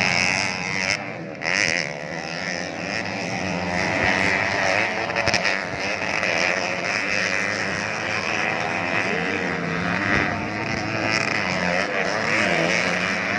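Motocross dirt bike engines revving as they race, several at once, their pitch rising and falling with the throttle.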